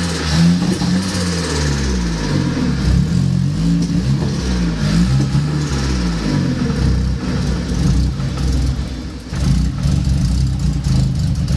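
Nissan CA18DET 1.8-litre turbocharged four-cylinder revved in repeated blips, its pitch rising and falling, then settling to a steadier idle about seven seconds in, with turbo flutter as the throttle snaps shut. It is the engine's first start and it runs a little rough.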